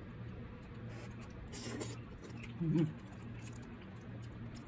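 Mouth sounds of a person eating: soft chewing and small lip clicks, a short breathy rush about one and a half seconds in, and a brief hummed "mm" a little later.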